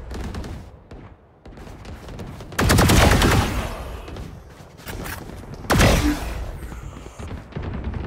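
Video game gunfire: two loud bursts of rapid automatic fire, the first about two and a half seconds in and the second about six seconds in, with quieter shots between.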